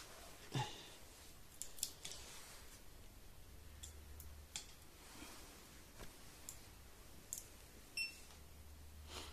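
Faint clicks and taps of hands handling cables, plugs and small plastic electronics parts on a table, with one short electronic beep about eight seconds in.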